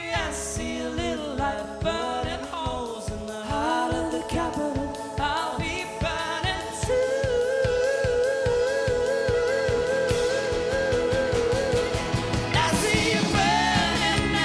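Live band music: male voices singing together over electric and acoustic guitars with a steady beat, and a long held note with vibrato in the middle.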